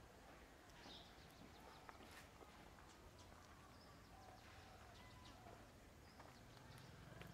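Faint outdoor ambience with scattered short bird chirps and a few light clicks.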